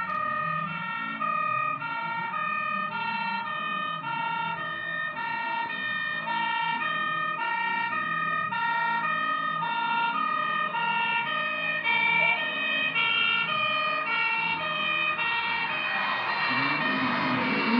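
Two-tone emergency-vehicle siren, a high and a low note alternating steadily. In the last second a dog starts to howl along with it.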